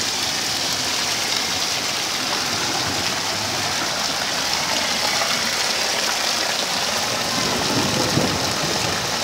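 Heavy rain falling in a hailstorm, a steady hiss on the street and roofs, with runoff water streaming along the cobbled street. A brief low swell about eight seconds in.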